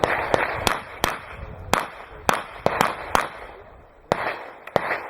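Rapid gunfire on a practical shooting stage: about a dozen sharp shots, most in quick pairs and triples with short pauses between groups, each with a brief echo.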